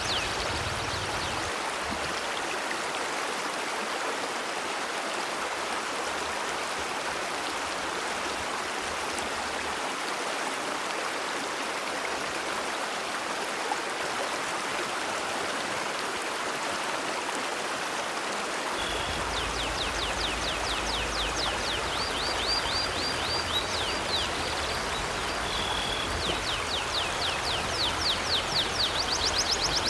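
River water flowing steadily over stones. About two-thirds in, a deeper rumble joins, along with a fast run of high, quick chirps that repeats to the end.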